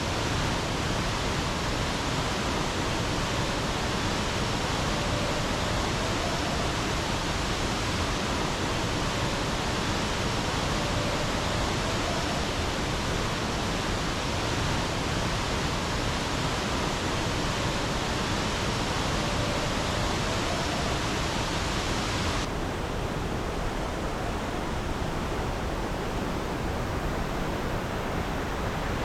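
Waterfall's steady rushing roar of falling water. About three quarters of the way through it turns abruptly duller, losing its highest hiss.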